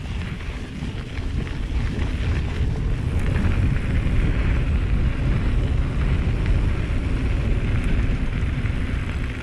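Wind rushing over the microphone of a moving mountain bike. It builds over the first three seconds as the ride gets going, then holds steady.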